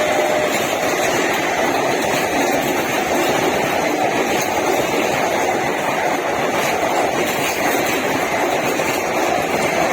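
Passenger train rolling past on the rails: a steady, loud rumble and rattle of coach wheels on track.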